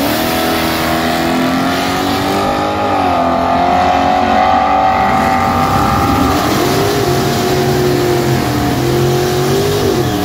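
A 1972 Chevy Nova's 496 cubic inch big-block V8 launching hard off the drag-strip starting line and running at full throttle as it pulls away. Its pitch drops and climbs again around three and six seconds in as it shifts gears.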